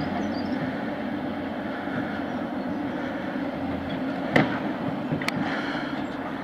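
Steady mechanical rumble, with a sharp knock about four seconds in and another about a second later.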